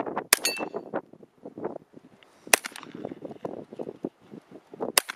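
A .22LR AR pistol with a Palmetto State Armory 8.5-inch upper fires three single shots about two and a half seconds apart. Right after the first shot, a hanging steel target rings with a clang.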